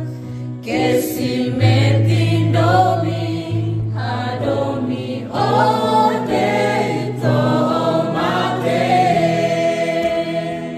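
A small choir of men and women singing, accompanied by an electronic keyboard holding sustained chords. The voices drop out near the end while the keyboard chord carries on.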